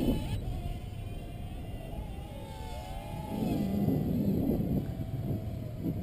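Strong wind buffeting the microphone in gusts, with the faint whine of a Dromida Verso quadcopter's small electric motors rising and falling as the drone fights the wind.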